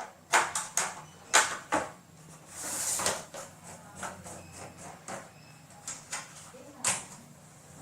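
Irregular sharp clicks and knocks from hands handling a TV set and its power supply lead, with a short scraping rustle about three seconds in.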